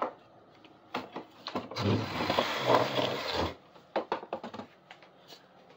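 Push broom with stiff bristles sweeping across a concrete floor: a few sharp knocks, then a long loud scrape in the middle, then a quick run of knocks and taps.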